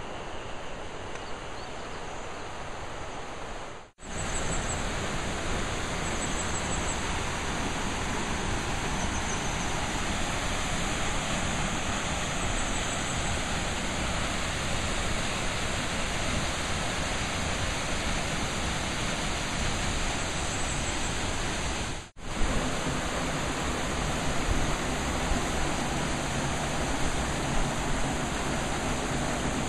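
Steady rush of a shallow mountain river running over rocks, with faint high chirps now and then. The sound cuts out for an instant twice.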